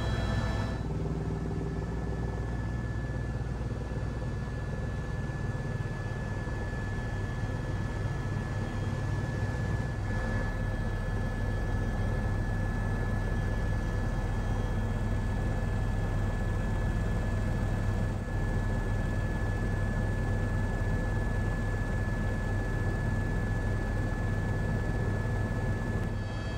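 Helicopter cabin noise in level flight: a steady low rotor drone with a thin, steady high tone over it.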